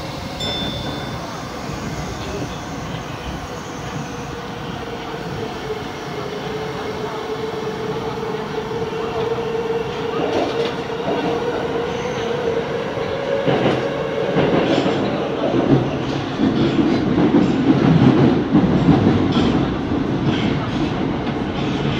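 Tokyo Metro Ginza Line 1000 series subway train running through a tunnel, heard from inside the front car. A steady whine sits over the rumble of the wheels, with clicks from the rail and a louder rumbling, clattering stretch in the second half.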